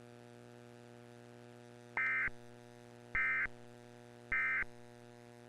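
Emergency Alert System end-of-message data tones: three short, identical bursts of digital data screech (the 'NNNN' code), each about a third of a second long and a little over a second apart, starting about two seconds in. A faint steady hum sits underneath.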